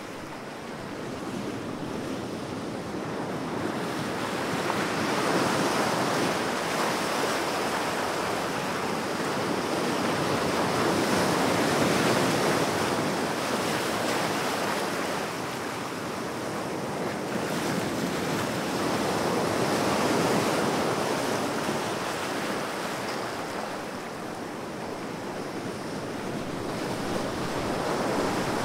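Ocean surf: a steady wash of breaking waves that swells and ebbs, cresting about four times, every seven or eight seconds.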